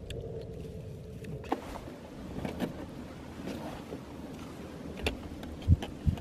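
Wind rumbling on the microphone, with a few light clicks and knocks, the loudest near the end.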